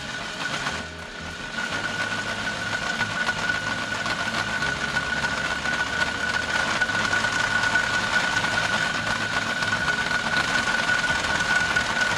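Electric drill running steadily, its bit boring the oil-return hole through a Mazda Miata's oil pan, with a constant high whine.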